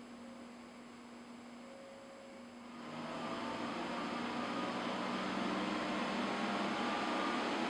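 Power Mac G5 Quad booting from an external hard drive over FireWire 400: a low steady hum, then about three seconds in a steady rush of fan noise swells and keeps growing, very loud.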